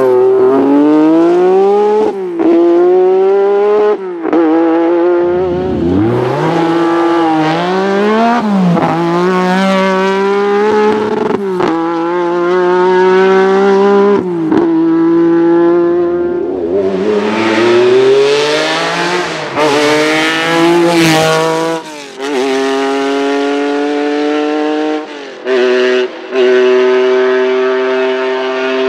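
Lancia Stratos rally car's V6 engine revving hard and running up through the gears. The pitch climbs and then falls back at each of about ten gear changes, with a brief dip in level at each shift. Near the end the revs hold steadier.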